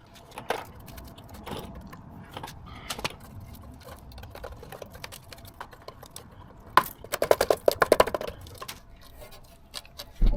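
Rusted, crumbling brake dust shield at a car's rear wheel being handled: scattered crunching clicks, then a dense burst of rapid rattling and scraping about seven seconds in.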